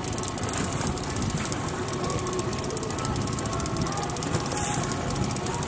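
Spinning fishing reel being cranked while playing a walleye, a steady rapid ticking, over wind and water noise.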